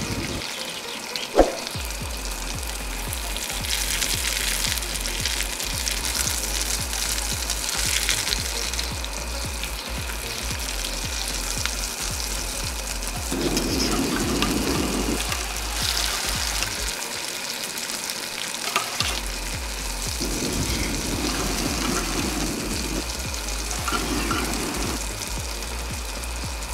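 A patty frying in hot oil in a wok, sizzling steadily, while a metal spatula scrapes and turns it in the pan. One sharp knock about a second and a half in.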